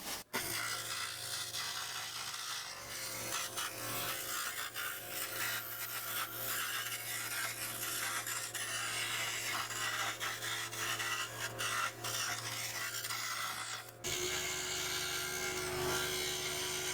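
Scroll saw cutting 1/4-inch Baltic birch plywood: a steady motor hum under the rasp of the reciprocating blade through the wood. About fourteen seconds in the sound breaks off and resumes abruptly, now with a steady higher tone added.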